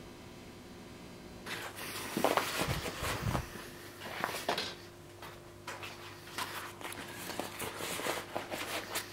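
A steady low hum, then from about a second and a half in, workshop handling noises: a few low thuds, then scattered light clicks and knocks.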